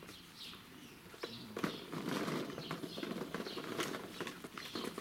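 Irish Setter puppies scrambling over and tugging at fabric dog beds: rustling fabric and scrabbling paws with sharp clicks and knocks, busier from about two seconds in.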